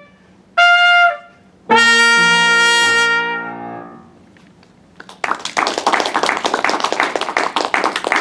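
Trumpet with piano accompaniment ending a piece: a short trumpet note, then a final held trumpet note over a piano chord that dies away. About five seconds in, applause starts and keeps going.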